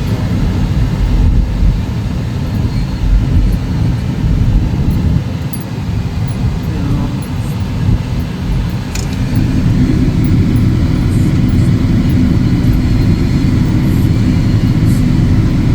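A car driving, heard from inside the cabin: a steady low rumble of road and engine noise that grows louder about ten seconds in.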